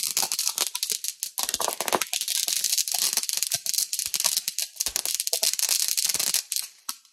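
Asda Sugar Skull firework fountain spraying sparks: a strong hiss with dense, rapid crackling. It dies away near the end.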